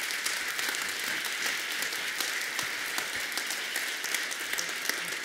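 A congregation applauding: many hands clapping steadily.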